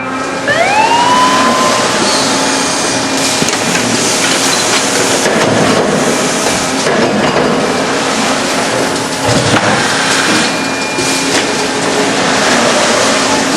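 Automated sheet-metal production line machinery running, a dense clatter of metal knocks and clanks over a steady hum. Near the start a motor whine rises and levels off.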